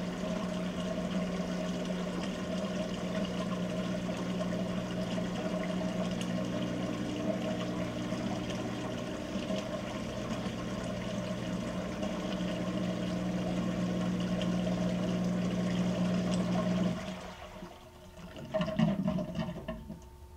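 Whirlpool WTW7300DW top-load washer moving water during its rinse-and-spin cycle: water rushing with a steady electric hum from the pump or valve. It cuts off about three seconds before the end, and a brief louder noise follows.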